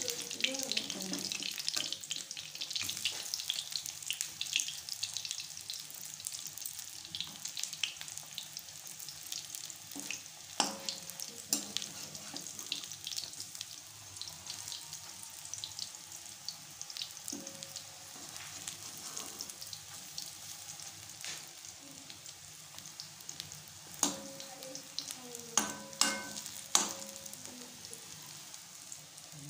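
Besan (gram-flour) pakoras sizzling and crackling in hot oil in a metal kadai, while a perforated metal spatula stirs and turns them. The spatula clicks against the pan now and then, with a few sharper metallic knocks near the end.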